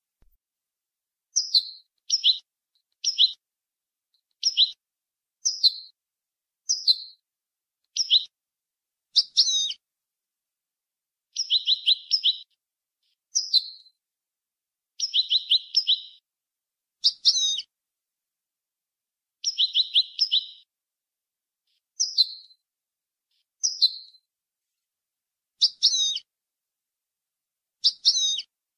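European goldfinch singing in the Moroccan 'jnanat' song style of Boujaad: short high phrases, mostly single sweeping notes about one a second. Three rapid trilled bursts come in the middle.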